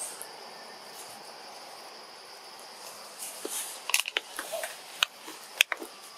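Steady high insect drone, with a cluster of sharp clicks and snaps about four to six seconds in.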